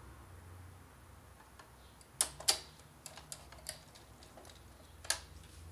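Screwdriver clicking and ticking against a screw in a projector's chassis as the screw is driven in: two sharp clicks a bit over two seconds in, a run of lighter ticks, and one more sharp click near the end.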